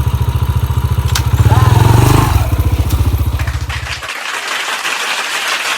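Yamaha XTZ 125's single-cylinder four-stroke engine running with an even low pulsing. It swells briefly in a short rev about one and a half seconds in, and its low sound stops about four seconds in, leaving a fainter hiss.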